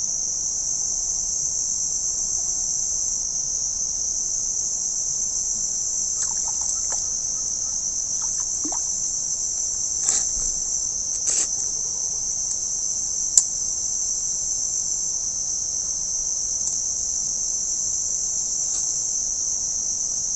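A steady, high-pitched insect chorus of crickets or similar insects, with a few brief clicks or knocks about halfway through.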